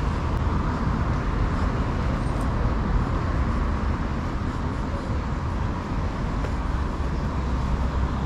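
Steady city street traffic noise: a continuous low rumble of cars on the avenue, with no single vehicle standing out.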